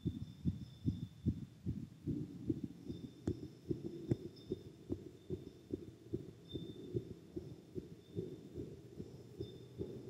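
A boy's heartbeat picked up by a chest-piece microphone pressed to his chest after exercise: a steady, quick run of low thumps, two to three a second.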